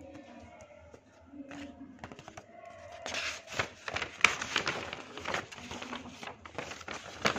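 Paper sheets rustling and crinkling as they are handled and flipped over, louder and more crackly from about three seconds in, ending with a sharp paper snap.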